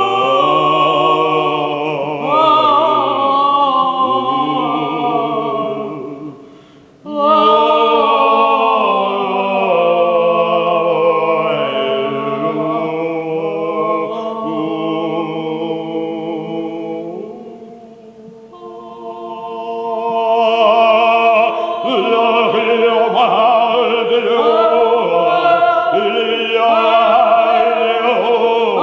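A man and a woman singing together without instruments in long, held, gliding notes in an operatic style. The voices break off briefly about seven seconds in and swell again after a softer dip a little past halfway.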